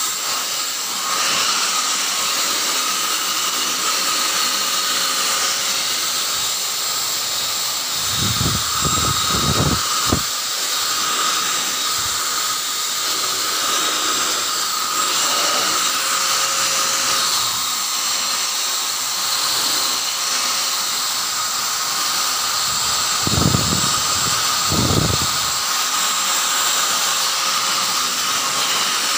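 Handheld electric blower running steadily, blowing dust out of a desktop computer case: a rush of air with a steady motor whine. Twice, about a third of the way in and again near the end, a brief low rumble breaks in.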